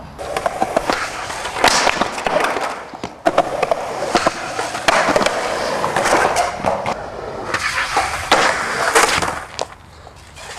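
Skateboard wheels rolling hard over concrete, broken by many sharp clacks and knocks of the board on the ground, with a short break a little over three seconds in.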